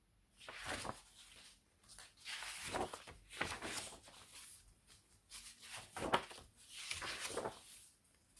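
Sheets of tea- and coffee-dyed paper rustling as they are lifted, shuffled and laid down by hand, in several short bouts.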